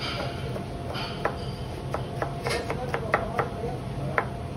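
Knife chopping on a cutting board in uneven strokes: about a dozen sharp knocks at irregular intervals.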